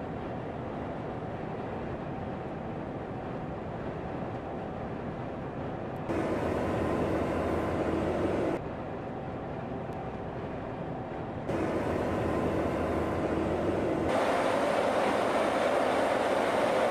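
Steady driving noise of the Mercedes-Benz Future Truck 2025 on the road, a drone with faint held tones. It jumps louder about six seconds in and falls back a couple of seconds later. It then rises again in two steps in the second half.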